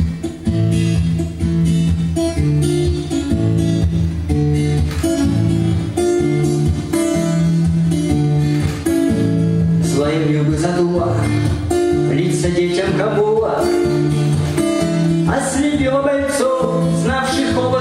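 Strummed acoustic guitar playing the instrumental introduction of a song, with a wavering melody line joining above it about ten seconds in.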